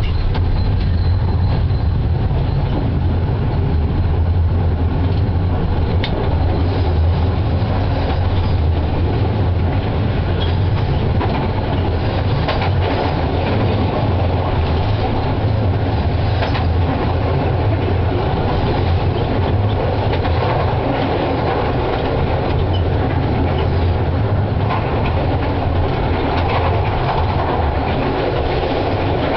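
Konstal 105NCh tram running steadily along the track, heard from inside the driver's cab: a constant low hum from the running gear and motors under the rumble of steel wheels on rails, with scattered clicks and knocks.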